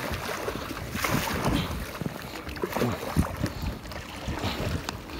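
Wind buffeting a phone's microphone in irregular low rumbles, with a few soft knocks and rubbing from the phone being handled.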